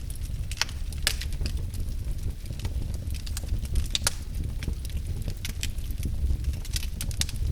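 Wood fire in a fireplace burning with a steady low rumble and frequent irregular sharp crackles and pops.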